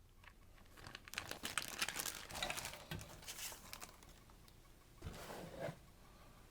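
Crinkling and rustling of a model kit's packaging, with light clicks, as the contents are handled for about three seconds, then a short louder rustle about five seconds in.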